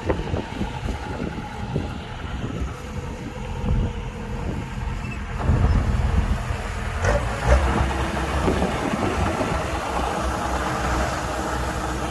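Kubota combine harvester running at working speed: a steady engine drone with the irregular rattle of its machinery, getting louder about halfway through.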